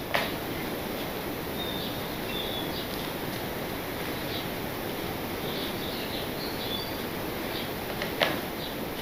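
Steady hiss of background noise, with a sharp click just after the start and another near the end, and a few faint high chirps in between.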